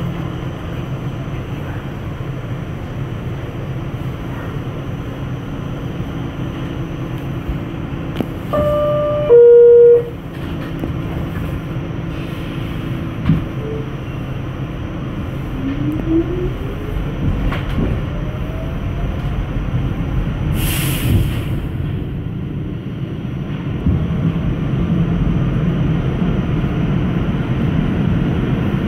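R46 subway car humming while it stands in the station, then its two-tone door chime sounds loudly about nine seconds in, followed by a thump. The train then pulls out, a whine rising in pitch as it accelerates, with a short hiss midway and the wheel rumble growing louder near the end.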